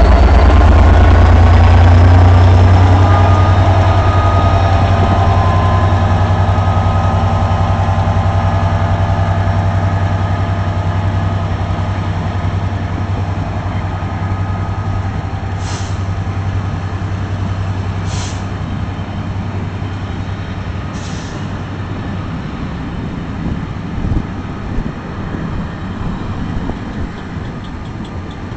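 Class 67 diesel-electric locomotive's two-stroke V12 EMD engine working hard as it pulls the train past, with a rising whine, the heavy engine note fading away as the coaches roll by. There are three short high hisses around the middle and irregular clicks near the end.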